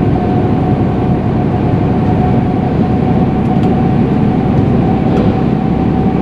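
Steady engine and road noise inside a moving truck's cab, with a constant thin whine above the rumble.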